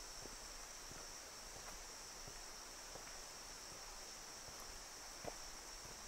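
A steady high-pitched insect chorus, like crickets, with soft footsteps on a trail about every 0.7 s, one a little louder about five seconds in.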